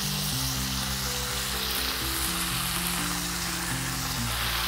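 Milanesa cutlets frying in oil in a skillet, a steady sizzle, with soft background music underneath.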